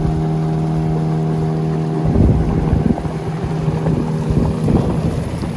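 Vehicle engine droning steadily at an even pitch, with wind rushing over the microphone.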